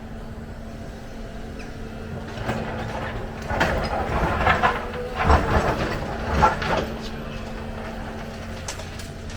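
Excavator's diesel engine running steadily, with a run of loud, rough, irregular noises from about two and a half to seven seconds in.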